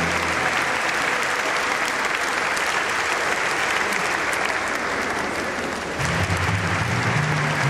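A large church congregation applauding, dense steady clapping. Low held tones come in about six seconds in.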